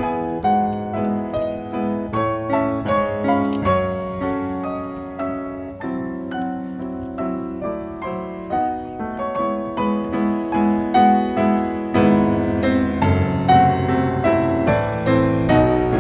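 Background piano music, a steady flow of gentle notes.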